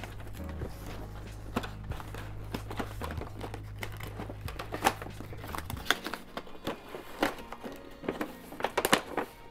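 Background music with a low bass line that drops out about six seconds in, over the rustle, scrape and knock of a cardboard train-set box being handled as its outer sleeve is slid off; the sharpest knocks come near the end.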